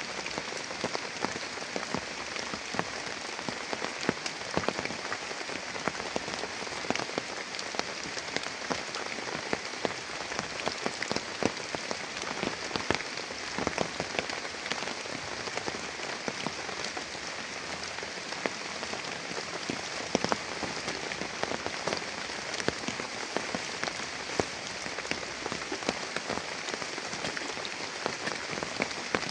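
Heavy rain falling steadily, with many separate drops ticking sharply on a nearby surface.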